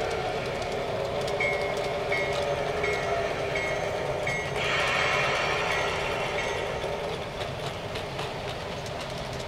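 LGB G-scale model trains running on garden-railway track, a steady rumble of wheels with clicks over the rail joints. A short high tone repeats about every 0.7 seconds for a few seconds, then a louder, hissing sound swells for about two seconds midway.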